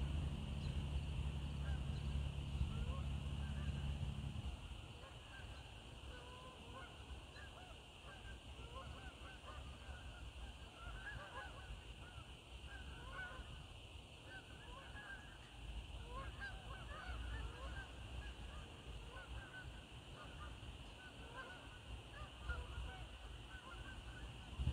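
Many short overlapping bird calls, a distant flock calling, over a steady high-pitched drone. A low rumble underlies the first four seconds or so, then drops away.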